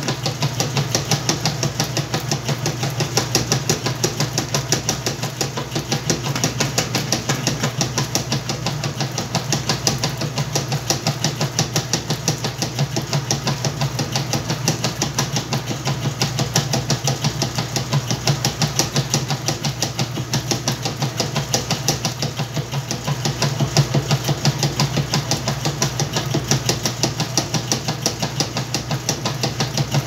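Whirlpool top-load washing machine agitating a load of towels and clothes in water: a steady churning with a rapid, regular pulse over a constant motor hum.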